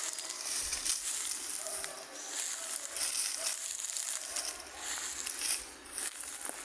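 Footsteps and rustling through grass and dry leaves, over a steady high hiss.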